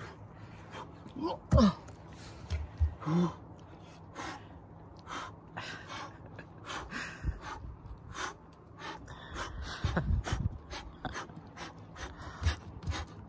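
A man's forceful breathing while exercising: many short, sharp exhalations and gasps, with a few grunts, as he does push-ups and then throws shadow kung fu moves.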